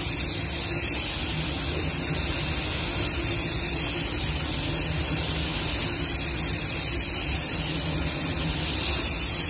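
Automotive paint spray gun spraying a coat of red basecoat: a steady hiss of compressed air and atomised paint.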